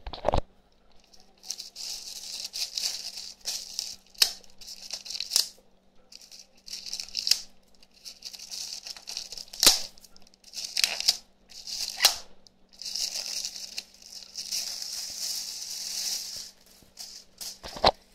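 Clear plastic packaging crinkling and rustling in repeated bouts as it is opened and handled, with a few sharp crackles in between.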